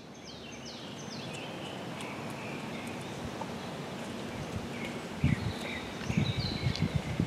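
Outdoor woodland ambience: a small bird repeats quick falling chirps over a steady background hiss. From about five seconds in comes a run of low, irregular thumps.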